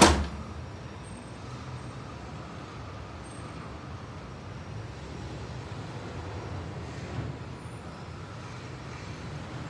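Steady low rumble like road traffic, with a small knock about seven seconds in.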